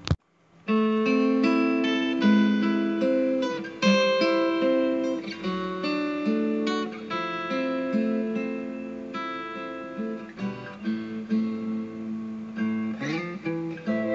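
Background music on acoustic guitar, picked notes, starting about half a second in after a brief silence.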